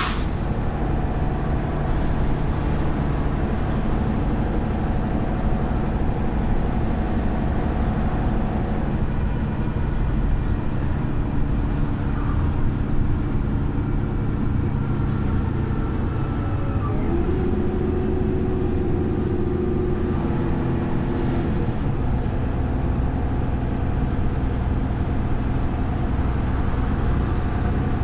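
Mercedes-Benz Citaro O530 bus's diesel engine running as the bus drives, a steady drone heard from on board. About two-thirds of the way through, the engine note dips and then climbs again.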